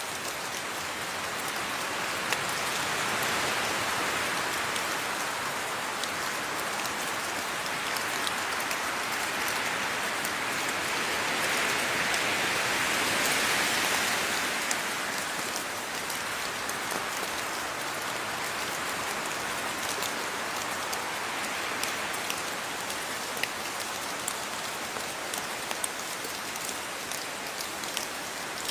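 Steady rain falling on a surface, with many separate drops ticking through it; the downpour swells a little twice, the second time heavier.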